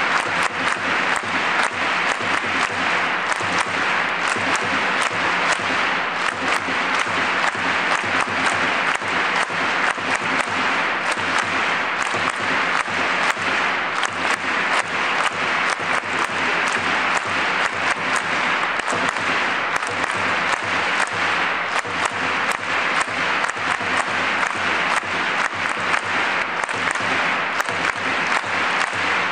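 A large stadium crowd clapping steadily, with individual claps from fans close by standing out sharply.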